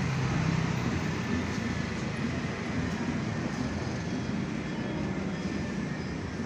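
Steady low rumble of motor vehicle noise, with no distinct knocks or events.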